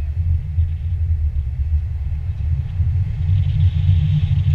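Wind rushing over a camera microphone during a paraglider flight: a steady low rumble.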